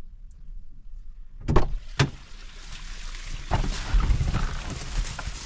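A Peugeot car door unlatching and opening with a knock about a second and a half in, then a click. After that a plastic carrier bag of soda bottles rustles and bumps as it is put into the car.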